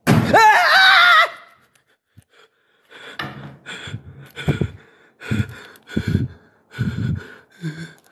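A person's high-pitched, wavering scream of fright for just over a second, then heavy panting breaths, roughly one every two-thirds of a second.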